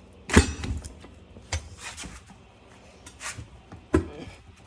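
A tire being flipped over and set back on a manual tire changer: a few separate thumps and knocks, the first the loudest.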